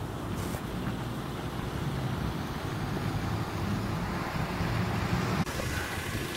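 A road vehicle's engine running steadily as a low rumble, with street traffic noise.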